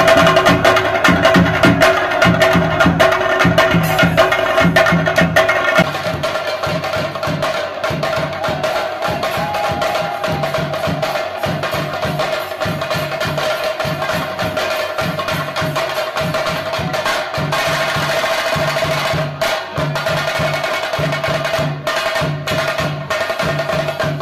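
Theyyam percussion music: chenda drums beating a steady rhythm under a sustained ringing tone. The playing gets a little quieter and sparser about six seconds in.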